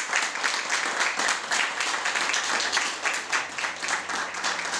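A room of guests applauding, many hands clapping densely and steadily.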